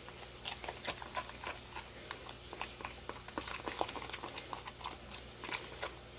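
Utensil mixing butter with dry-rub spices into a paste in a bowl: a run of small, irregular clicks and taps.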